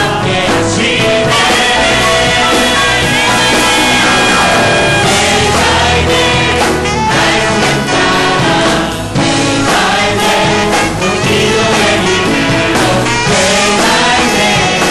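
Korean contemporary worship song sung by a group of men and women together, with instrumental backing and a steady beat.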